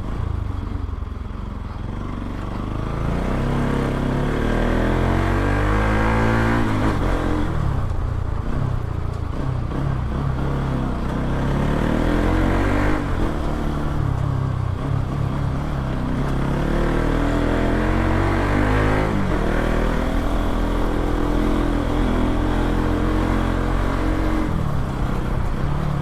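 Bajaj Pulsar NS200's single-cylinder engine through an Akrapovic aftermarket exhaust fitted with a dB killer, on the move. The exhaust note climbs in pitch under throttle and drops back several times, as in accelerating and shifting through gears.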